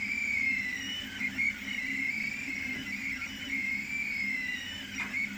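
3D printer stepper motors whining as the print head moves, the pitch gliding up and down with each move, over a steady low hum. A single click comes about five seconds in.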